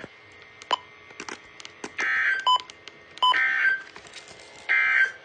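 Three short bursts of NOAA Weather Radio SAME digital data tones, about a second and a half apart, each short enough to be the end-of-message code that closes a broadcast. A few faint clicks and short beeps come between them.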